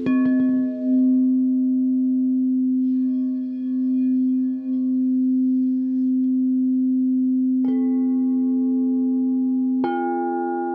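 Crystal quartz singing bowls tuned to 432 Hz, struck three times and left ringing: a long low tone from the first strike, then two more strikes near the end that add higher notes over it.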